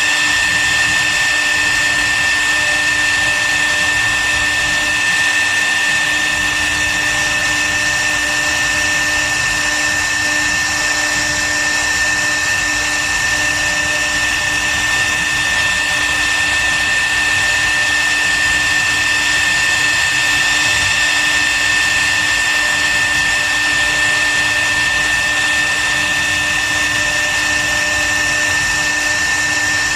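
CNC wood router's spindle running at a steady speed, a constant high whine over a steady hiss.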